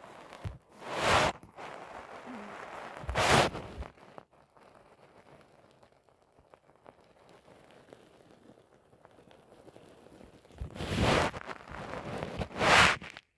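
Close-miked belly sounds after a meal: faint crackling gut noises and a brief low gurgle, broken by four loud rushing swells, two in the first few seconds and two near the end.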